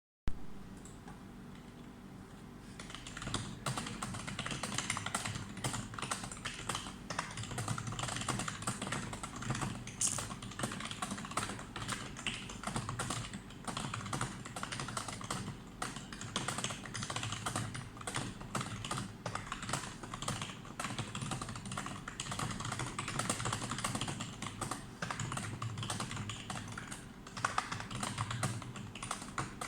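Fast, continuous typing on a computer keyboard, with rapid keystroke clicks that pick up about three seconds in.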